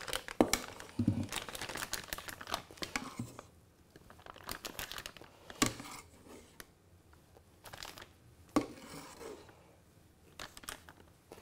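Clear plastic piping bag crinkling as it is handled and filled with chocolate cake batter, busiest in the first few seconds and sparser after. A few sharp knocks come from the metal ladle against the stainless steel bowl.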